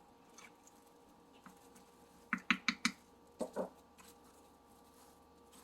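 Fork tapping and scraping as dishwasher-tab mixture is scooped into an ice cube tray: a quick run of four light taps about two seconds in, then two duller knocks a second later.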